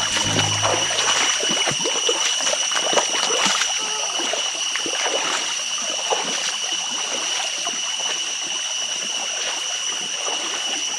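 Stream water running and trickling over rocks, with a steady high-pitched whine running over it. The tail of background music ends about two seconds in.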